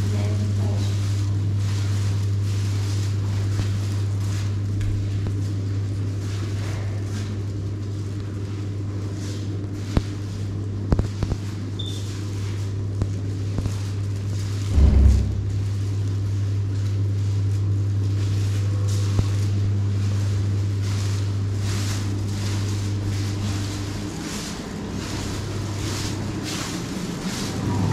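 A steady low hum, possibly of machinery, under footsteps, weakening for a few seconds near the end. A few sharp clicks come about ten seconds in, and a single low thump about fifteen seconds in.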